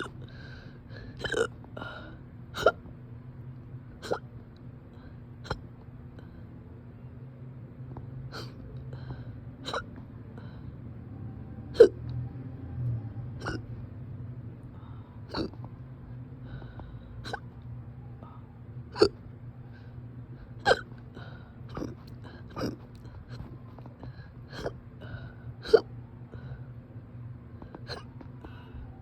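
A person hiccuping over and over: a short, sharp hic about every one to two seconds, some much louder than others.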